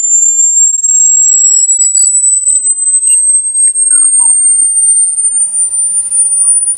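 Electronic rat-repellent tone, meant to drive rats away: a loud, high-pitched whistle that rises slowly in pitch throughout. Fainter sweeping chirps fade out in the first two seconds.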